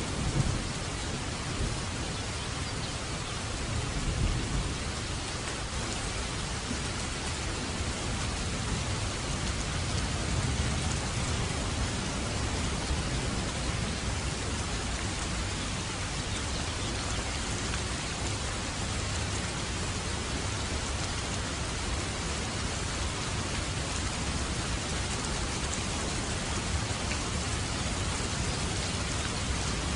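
Steady rain falling in an even hiss, with low rumbles of thunder about four and ten seconds in.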